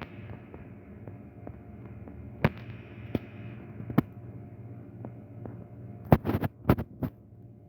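Steady low hum with a few sharp clicks: three single clicks spaced under a second apart, then a quick cluster of louder clicks about six seconds in.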